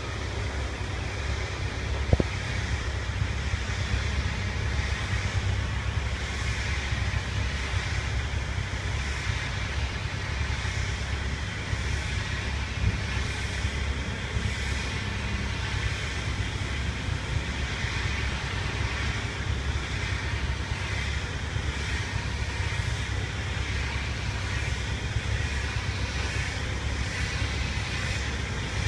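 Pressure washer running steadily: a continuous low drone with a wavering hiss of spray over it, and a sharp click about two seconds in.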